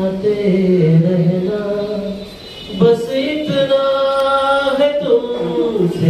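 A man singing solo into a microphone, amplified through a small PA system, unaccompanied, with long drawn-out notes and one held note in the middle.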